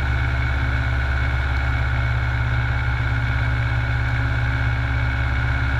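Piper J3 Cub's engine and propeller running steadily in flight, heard from inside the cockpit as an even, low drone.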